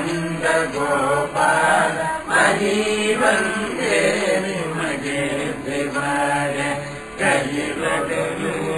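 A Tamil devotional hymn to Murugan, sung in a chanting style with musical accompaniment.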